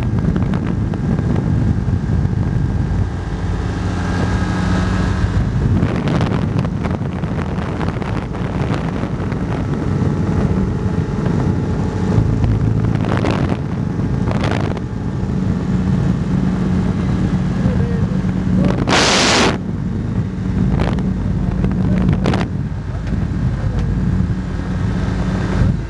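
Ultralight aircraft engine and propeller droning steadily in flight, with wind buffeting the microphone. A brief loud rush of noise about three-quarters of the way through.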